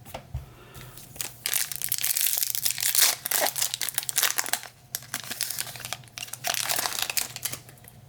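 Foil wrapper of a Topps Chrome Update trading-card pack being torn open and crinkled by hand, in two stretches of crackling, the second shorter.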